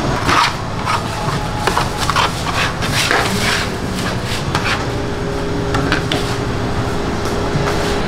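Quick irregular taps and knocks of hands, scraper and dough pieces against a flour-dusted steel worktable, thick in the first few seconds and sparser later, over a steady low background hum.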